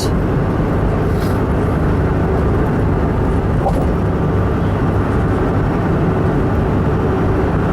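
Steady road noise inside a truck's cab at highway speed, about 70 mph: an even rush of tyre and wind noise over a low engine and drivetrain hum.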